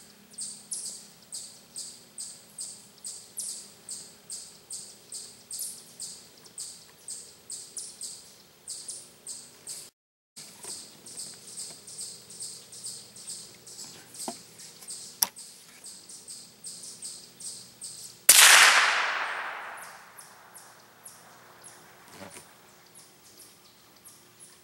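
A single shot from a bolt-action Marlin 25N .22 rifle about three-quarters of the way in: a sharp crack that rings and dies away through the woods over about two seconds. Beneath it, a steady high chirping, about two chirps a second, drops out for a moment near the middle.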